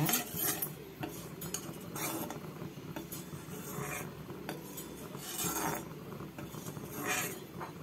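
Steel ladle scraping and clinking against a steel kadai as turmeric is stirred into oil, in about five separate strokes roughly a second and a half apart.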